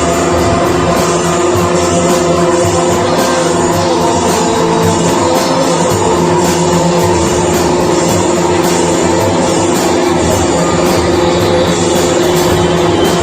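Loud live band rehearsal playing a noisy krautrock-psychedelic jam, with steady droning tones held throughout.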